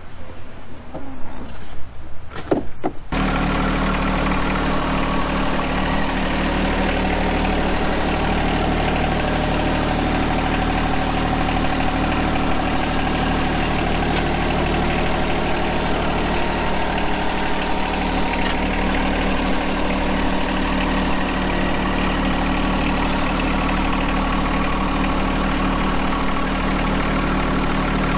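Crickets chirping with a few clicks, then, about three seconds in, the three-cylinder diesel of a John Deere 1025R compact tractor cuts in and runs steadily.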